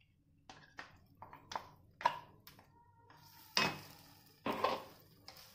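Steel grinder jar knocked against a nonstick kadai to empty out thick masala paste: a string of sharp knocks, one leaving a faint metallic ring. Near the end, a wooden spatula scrapes the paste around the pan in two longer strokes.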